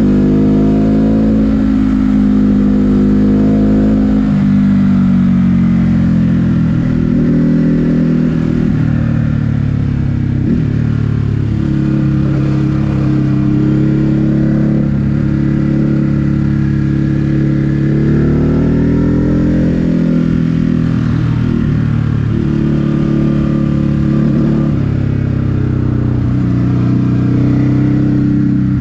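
Ducati Hypermotard 950 SP's L-twin engine running under way, its revs holding for a few seconds at a time and climbing and dropping sharply several times.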